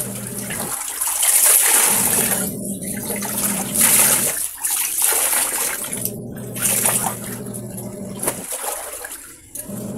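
Wet clothes being wrung out by hand over a basin, water splashing and pouring back into the basin in several bouts.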